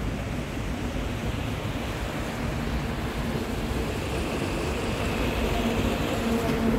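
Steady outdoor noise: a rushing hiss over a low rumble, with a faint hum growing stronger from about two-thirds of the way in.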